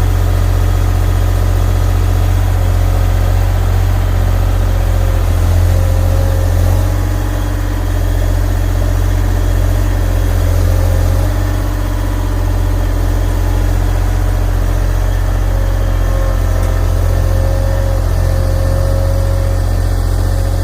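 Heavy-equipment engine running steadily at idle, a continuous low hum that swells slightly a couple of times.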